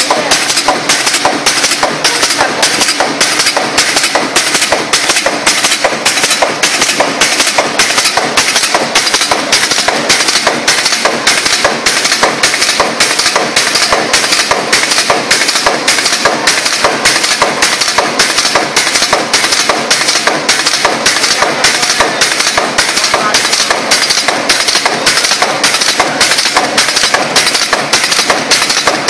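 Office staple making machine running at production speed: its forming press stamps in a steady, rapid clatter of about two strokes a second over a continuous mechanical din.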